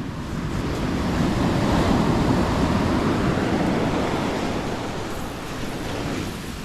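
Ocean surf: a wave breaks and washes in, swelling to a peak about two seconds in and then easing off.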